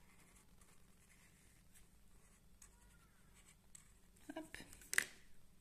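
Felt-tip marker scratching faintly on cardboard as curved scale shapes are drawn. A sharp click comes about five seconds in.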